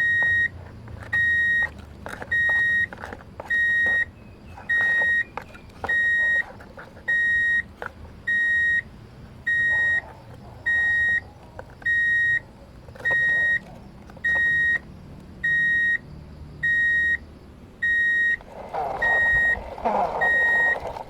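Vehicle reversing alarm sounding a steady train of single high beeps, each about half a second long and a little over a second apart. Faint clicks and rattles fall between the beeps, and a brief rushing, scraping noise comes near the end.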